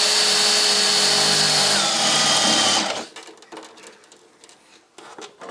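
Cordless drill running as its bit bores into the tractor's painted fender, steady for about three seconds with a slight drop in pitch about two seconds in before it stops. A few faint clicks of handling follow.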